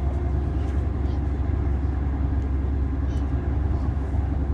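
Passenger train running, heard from inside the carriage: a steady low rumble of the engine and wheels on the track.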